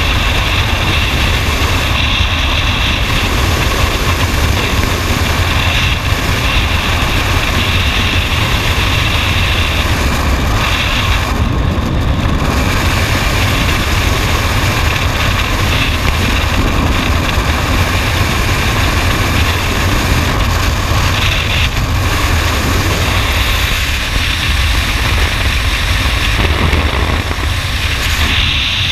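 Freefall wind rushing over a helmet-mounted camera's microphone: a loud, steady buffeting rumble.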